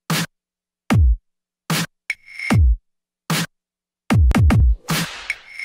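Electronic dance track with sparse, heavy drum-machine bass hits that fall in pitch, about one a second with silence between them. Near the end a quick run of hits and a rising swell build toward the drop.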